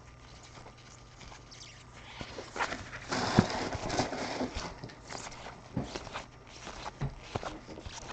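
Trading cards being handled on a table: irregular taps and clicks, with a louder rustle of card packaging about three seconds in.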